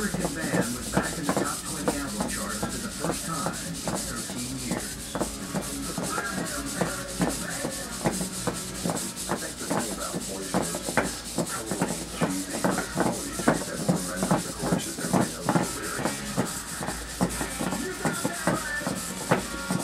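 Micro hexapod robot walking on a plywood board: its cheap HexTronik micro servos whirring and grinding as the legs move, and its feet tapping and scraping on the wood in quick, irregular ticks.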